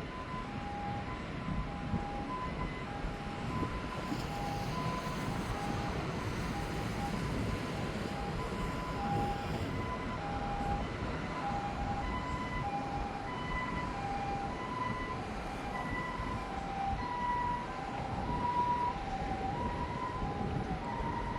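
Distant two-tone hi-lo siren of a Japanese ambulance, a higher and a lower tone alternating about once a second, growing louder toward the end, over a low steady noise.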